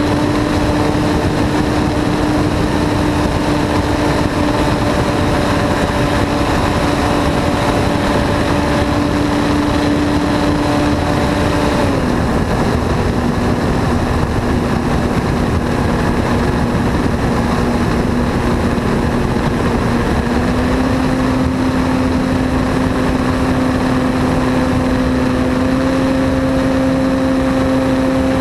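The motor and propeller of an Aeroworks Extra 260 radio-controlled aerobatic model plane running in flight, heard from a camera mounted under the plane, over a steady rush of air noise. The motor's pitch drops about twelve seconds in, then steps back up twice later on.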